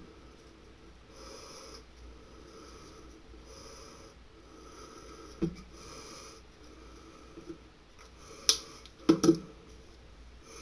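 Sharp knocks of things handled on a desk: one about five seconds in and a quick cluster of three near the end. Under them is a soft whooshing that comes and goes about once a second, like breathing close to the microphone.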